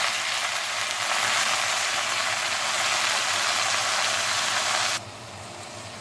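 Chicken pieces sizzling as they brown in hot oil with onion, potato and carrot, a steady hiss. About five seconds in it cuts off suddenly to a quieter sizzle.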